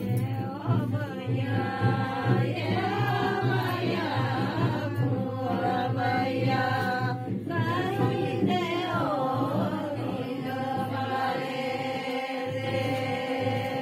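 Women singing a song together, with a steady low hum beneath the voices.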